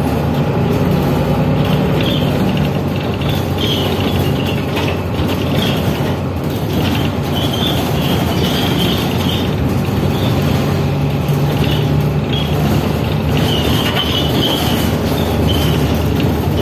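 Tram heard from inside the car as it runs along the rails: a steady rumble of wheels on track with a low motor hum, and a high squeal that comes and goes several times.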